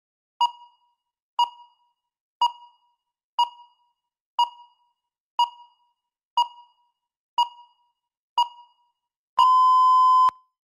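Electronic countdown timer beeping once a second: nine short beeps, then one long beep as it reaches zero, signalling that the speaking time is up.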